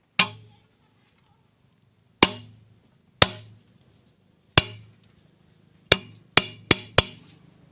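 A series of eight sharp knocks, widely spaced at first, then four in quick succession near the end, each ringing out briefly.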